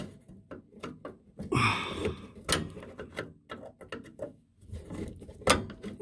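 A hand Phillips screwdriver working a screw on an RV refrigerator's gas valve assembly: irregular sharp clicks and knocks of metal on metal, with a short scrape about one and a half seconds in.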